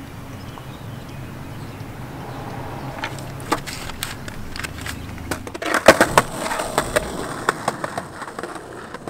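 Skateboard wheels rolling on pavement, the rumble growing louder, then a cluster of sharp clacks from the board about six seconds in, followed by a few scattered clicks.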